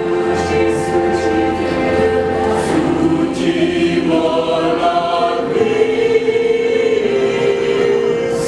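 High school mixed choir singing in several parts, holding sustained chords that shift to new harmonies partway through, with crisp sibilant consonants.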